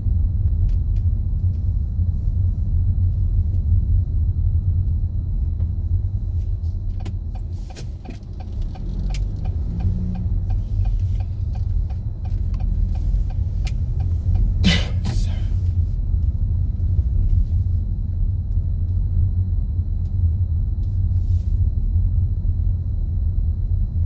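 A steady low rumble, with scattered light clicks and a short loud hiss about fifteen seconds in.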